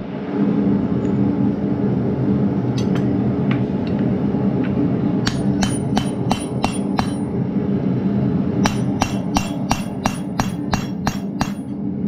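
Hand hammer striking a steel drift in a hot mild steel bar on an anvil, driving a square hole through: a few light taps, then a run of about seven ringing blows, a short pause, and a run of about a dozen more, roughly four a second. A steady low hum runs underneath.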